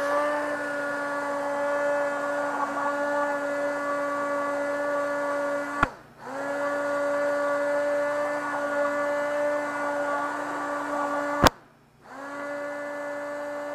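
Hand-held immersion blender running at a steady pitch, pureeing shrimp bisque in a tall stainless steel cylinder. It stops twice, each time with a sharp click, and starts again a moment later; the last run is quieter.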